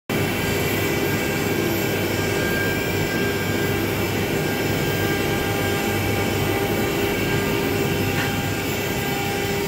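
ATK Lasers gantry CNC router running, its spindle whining steadily as the gantry carries the bit across a clamped wooden board.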